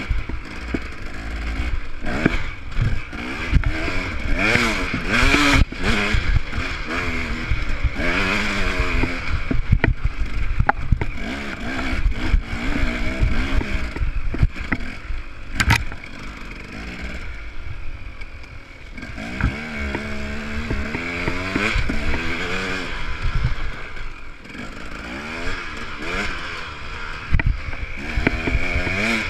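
Enduro dirt bike engine revving up and down over and over as the rider opens and closes the throttle, dipping quieter for a few seconds around the middle. Sharp clattering knocks from the bike riding over rough ground run through it.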